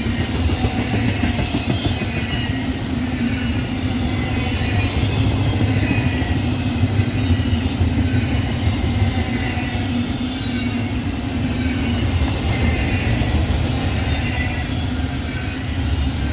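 Westbound BNSF double-stack container train's cars rolling steadily past, wheels clattering on the rails with a faint high wheel squeal.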